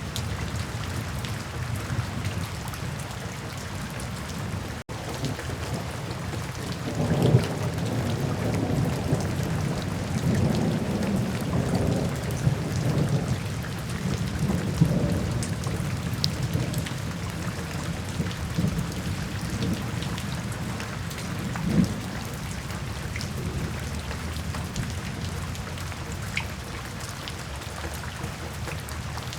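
Steady rainfall with a long, low rumble of thunder that starts about a third of the way in and rolls on for some fifteen seconds before dying away. There is a brief break in the sound shortly before the thunder.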